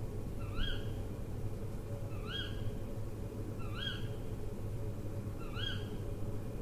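An owl calling, a short note that rises then falls, repeated four times at an even pace of about one every second and a half, over a steady low hum.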